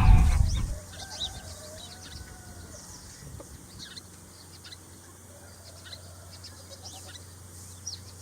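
Chickens clucking faintly, with small birds chirping now and then. It opens on the fading end of a louder animal call.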